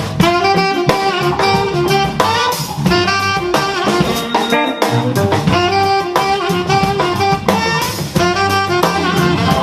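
Live saxophone playing a swing or soul tune in short, punchy notes over bass and a drum kit.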